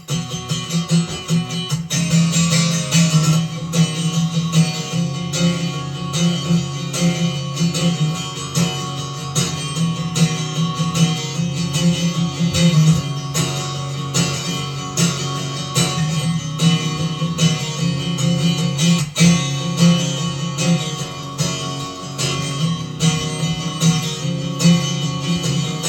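Acoustic guitar strummed in a steady rhythm, an instrumental break between the sung verses of the song.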